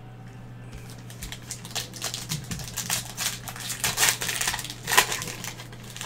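Plastic wrapper of a sports trading-card pack crinkling and crackling as gloved hands handle it, with louder crackles about four and five seconds in.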